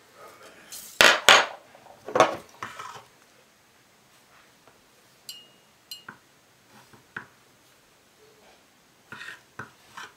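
Handling on a workbench: a few loud rustling scrapes in the first three seconds, then scattered light clicks and a couple of short metallic clinks as a chrome leatherworking tool is picked up and fitted to a leather strap.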